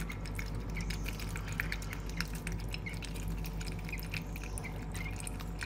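Thin stream of tap water falling into water pooled in cupped hands, with irregular small splashes and drips as a European goldfinch bathes in it. A steady low hum underneath.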